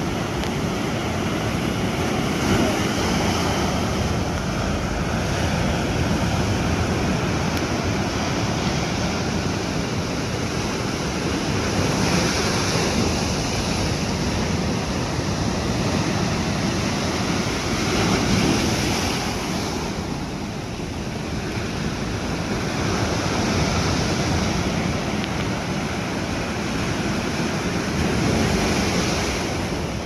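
Sea surf breaking and washing over rocks at the shoreline in a steady rush of foaming water, swelling and easing as each wave comes in.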